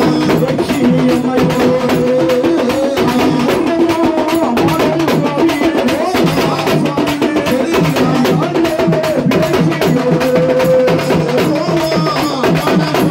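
Villu pattu temple music for the god's coming: a fast, dense beat of hand drums and clacking percussion under a held, wavering melody line.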